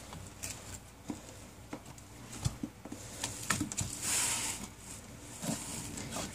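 Screwdriver tip prodding and scraping at a rotting wooden sill board laid on the ground: scattered small clicks and taps, with a longer scratchy scrape about four seconds in.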